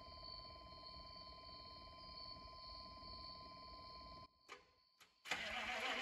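Faint steady hum, then a brief near-silent break, and about five seconds in the 1996 GMC K3500's 6.5-litre V8 diesel begins cranking over on its starter, loud and dense; the truck is a hard starter with an air-bled fuel system.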